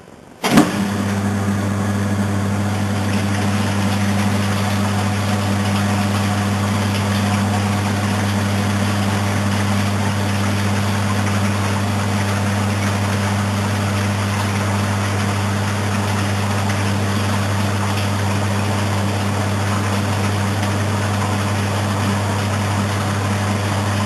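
Maytag Atlantis top-load washing machine starting agitation: a sudden clunk about half a second in as the drive motor kicks on, then a steady low hum of the motor and transmission with the agitator churning the water-soaked load.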